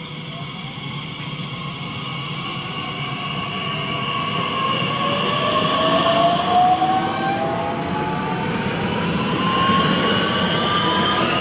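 Bombardier Talent 2 electric multiple unit (DB class 1442) pulling away and accelerating, its traction motors whining in several tones that rise steadily in pitch as the train grows louder.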